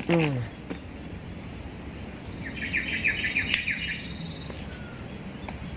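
A small bird singing a quick run of about ten chirps in the middle, with a thin steady high insect buzz alongside it. A person's brief falling vocal sound is heard at the very start, over outdoor background hiss and a few light clicks.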